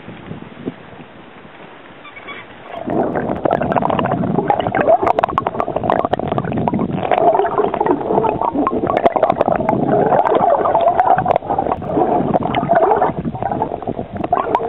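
Underwater water noise on a camera dunked below the surface: after a quiet start, loud muffled rushing and gurgling begins suddenly about three seconds in, with many small crackles and pops.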